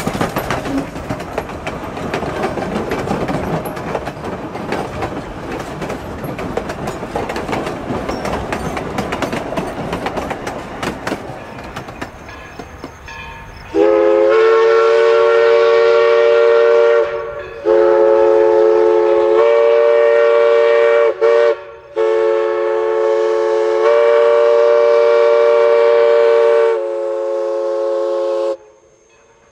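A steam locomotive, East Broad Top's 1916 2-8-2 Mikado No. 16, runs past with rumble and wheel clatter that fades away over the first half. Then its steam whistle sounds a chord of several tones in long blasts broken by a short gap, in a pattern like the long-long-short-long grade-crossing signal.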